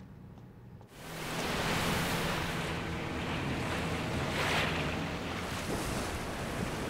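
Wind and sea waves rushing, cutting in suddenly about a second in after a quiet room tone, with a low steady hum underneath.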